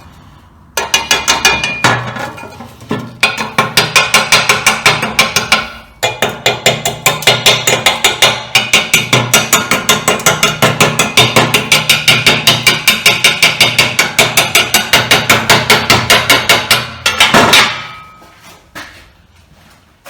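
Slag-chipping hammer rapidly striking weld beads on a steel plate to knock off the slag of basic-coated UONI 13/55 electrodes: runs of sharp, ringing metal strikes, about five a second, with brief pauses. Near the end there is a short, louder rasp, after which the striking stops.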